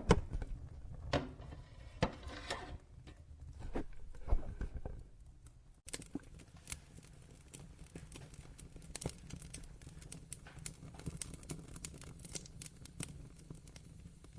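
Wood fire crackling in a fireplace: irregular sharp pops and snaps over a low steady rumble. A few loud pops come in the first few seconds, the sound changes abruptly about six seconds in, and then a steadier run of small crackles follows.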